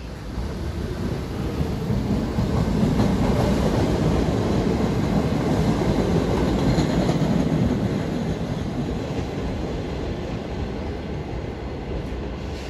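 New York City subway train pulling out of the station right beside the platform, a steady rumble of wheels on rail that swells as the cars gather speed past and then slowly fades as the train leaves.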